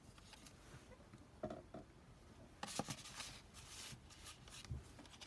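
Faint rustling and light ticks of paper and cardstock as journal pages and a tag are handled and turned, busiest about three seconds in, with a soft bump near the end.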